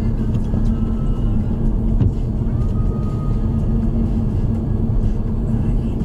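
A car driving along: steady low rumble of road and engine noise with a steady hum, and a single brief knock about two seconds in.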